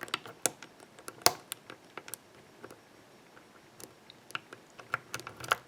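Lock pick and tension wrench working the pin stack of a Master Lock ProSeries 6121 padlock, giving faint, irregular metallic clicks, with a sharper click about a second in and a quick run of clicks near the end. The pins are being set again after the set pins dropped.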